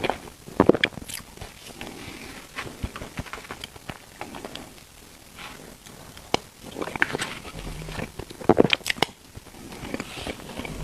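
Eating sounds: irregular bites and chewing of bread, with crackling and scraping; the loudest clusters of bites come about a second in and again near the end.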